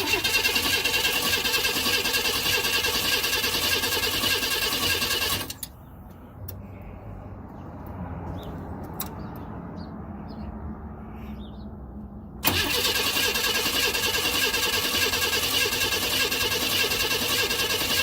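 1992 Chevrolet Camaro RS V6 cranking on its starter without firing: steady cranking for about five seconds, a pause, then cranking again from about twelve seconds in. The engine turns over strongly but won't catch, a crank-no-start condition.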